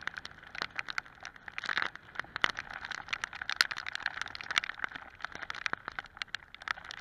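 Water drops pattering close to the microphone: an irregular run of sharp ticks, as rain and spray strike in rough, wet weather.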